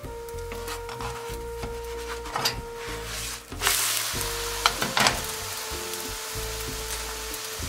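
A thin crepe sizzling in a hot frying pan. About halfway through, the sizzle jumps suddenly louder as the crepe is flipped onto its uncooked side, followed shortly by two light taps.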